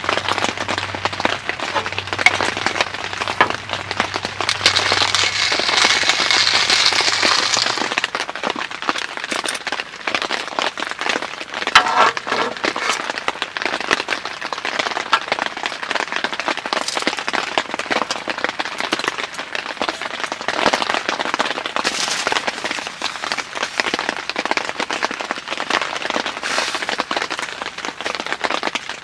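Rain pattering: a dense, irregular patter of drops striking a surface.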